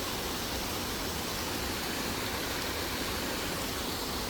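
Steady, even rushing of a small stream of running water.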